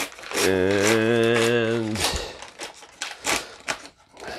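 Brown paper ration bag being torn open, with short crackles and tearing clicks. About half a second in, a man hums one low, slightly wavering note for about a second and a half.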